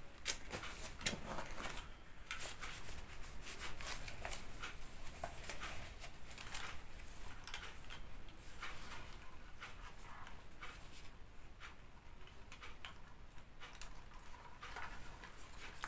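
Soft paper rustling as pages of an instruction booklet are turned, with scattered small clicks and handling noises from a compact camcorder being fiddled with.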